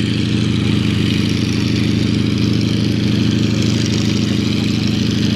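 Yakovlev aerobatic aircraft's nine-cylinder M-14P radial engine running at a steady low speed, an even, unchanging drone with no revving.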